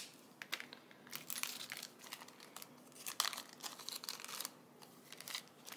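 Small plastic bag crinkling and rustling as it is handled, with scattered small clicks.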